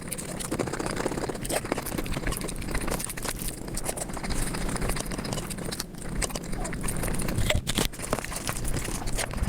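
Close-miked eating and chewing sounds sped up five times, a dense, continuous run of rapid clicks and crackles.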